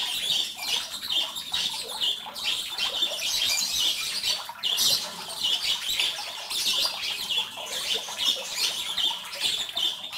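Many small birds chirping at once: a dense, continuous chatter with no pause.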